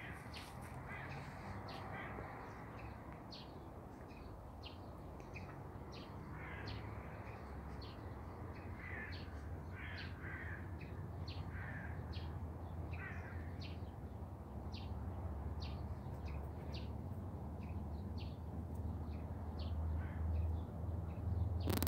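Birds calling outdoors: short high chirps repeat about once or twice a second, with a run of lower calls in the middle. A steady low hum lies underneath.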